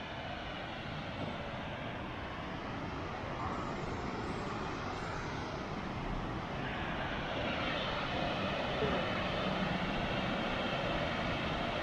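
Steady rushing roar of a river waterfall heard from high above the gorge, growing a little louder about halfway through.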